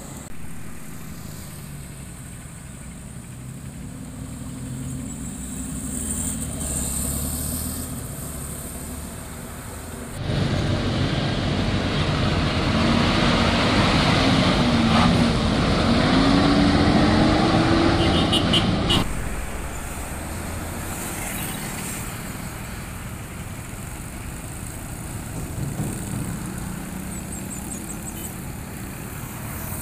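Diesel trucks and traffic passing at a road junction. About ten seconds in, a heavy truck's diesel engine pulls through close by and much louder, its pitch climbing as it accelerates, then cuts off suddenly about nine seconds later, leaving lighter traffic.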